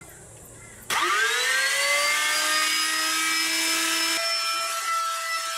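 Electric router switched on: its motor whine climbs quickly in pitch as it spins up about a second in, then runs steadily at full speed.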